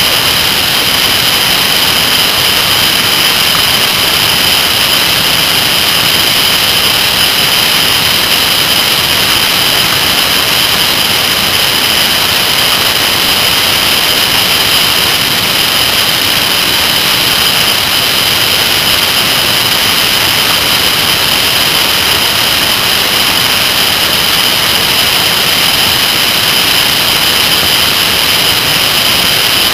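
Steady rushing wind noise on a camera mounted low on a moving motorcycle, with a constant high hiss over it.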